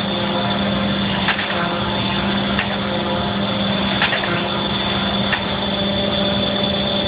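Mattison horizontal surface grinder running under power with a steady hum and a high whine as its table traverses. Light clicks come about every second and a half.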